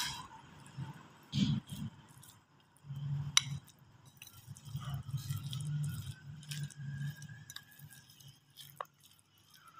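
A spoon stirring shredded chicken and mayonnaise in a ribbed glass bowl, scraping and clinking now and then against the glass.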